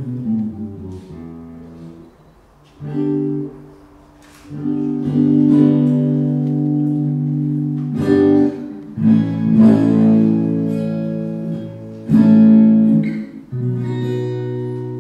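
Acoustic guitar playing strummed chords that ring on, with short pauses between phrases, amplified through a Voiceprint DI pedal with its impulse-response processing switched on.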